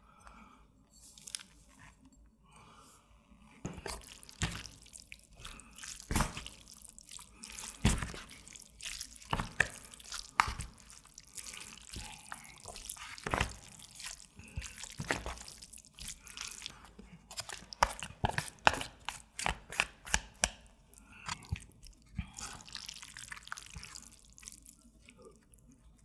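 Wooden chopsticks mixing noodles into thick black-bean sauce in a plastic delivery bowl: wet squelching and smacking of the sauced noodles with many irregular sharp clicks of the chopsticks against the bowl, starting a few seconds in.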